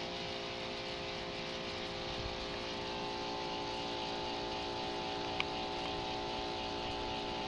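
Steady hum made of several held tones at an even level, with one faint click about five seconds in.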